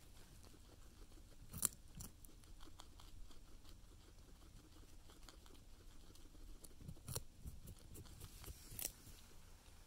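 Guinea pigs gnawing a raw carrot: a run of faint, quick crunching bites, with a few louder crunches.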